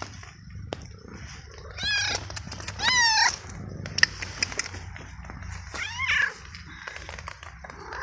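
Young stray cat meowing three times, about two, three and six seconds in, the middle meow the loudest. A sharp click comes about four seconds in.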